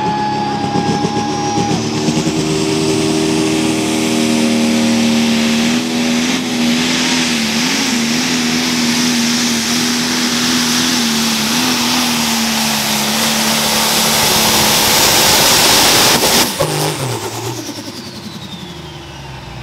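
Light pro stock pulling tractor's turbocharged diesel engine running flat out under load, with a loud, steady engine note and a high turbo whistle. Near the end the engine is shut off abruptly and the turbo's whine winds down in falling pitch.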